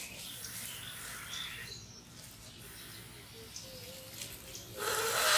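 Long rocket balloons being blown up by mouth, with a loud rush of air lasting about a second near the end. Faint bird chirps underneath.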